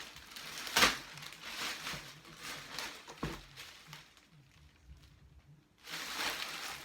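Packaging rustling and crinkling as a canvas tote bag is unwrapped and handled, with sharper crackles about a second in and about three seconds in. It goes quiet for a moment before more rustling near the end.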